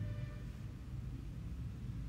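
Low steady background hum with no distinct event.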